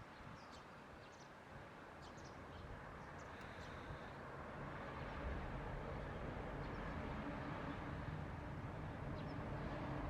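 Short, high bird chirps, mostly in the first few seconds, over a steady rushing background that grows louder, with a low hum joining it about halfway through.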